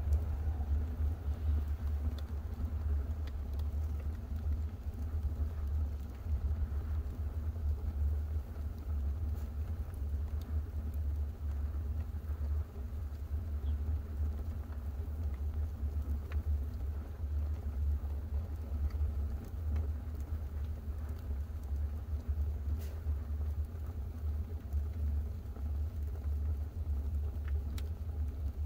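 Homemade steel wood stove burning during its burn-in: a steady, fluttering low rumble of the fire drawing, with a few faint ticks.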